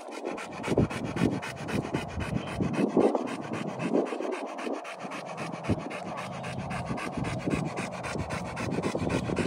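Rottweiler panting rapidly with its mouth open, several quick breaths a second.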